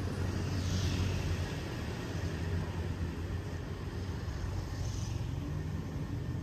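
Street ambience: a steady low rumble of traffic, with a soft whoosh of a passing vehicle about a second in and again around five seconds in.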